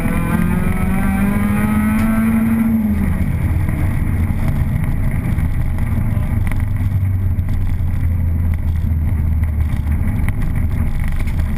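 Opel Astra GSi's four-cylinder engine heard from inside the cabin, rising in pitch as it accelerates for about three seconds, then dropping away to a steady low drone as the car rolls on at low revs.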